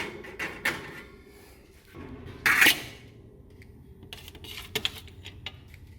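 Small metal parts being handled on a workbench: scattered clicks and light clinks, with one louder short rustling clatter about two and a half seconds in.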